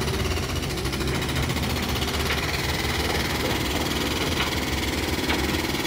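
Heavy-equipment diesel engine running steadily at a low, even speed while a load is lowered on the crane, with a few faint ticks.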